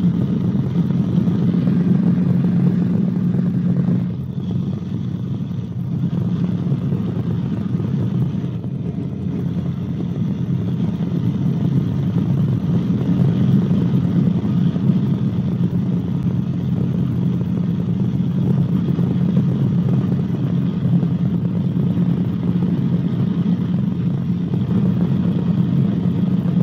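Steady drone of a Cabri G2 helicopter's piston engine and rotors in flight, as heard in the cabin, with a slight dip in loudness about four seconds in.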